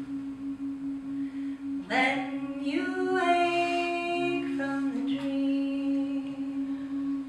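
Women's voices singing a cappella in harmony. A steady low note is held throughout, and about two seconds in other voices slide up into long held notes above it.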